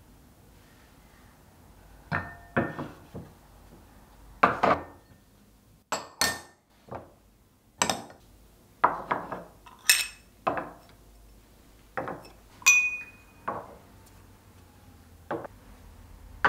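Small ceramic bowls clinking and knocking as they are set down on a wooden tray and against each other: a string of sharp, separate clinks, some ringing briefly.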